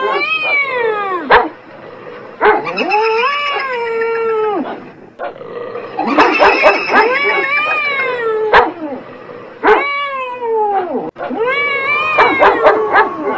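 Cats caterwauling: about five long, wavering yowls one after another, each rising and falling in pitch, with short sharp dog barks in between.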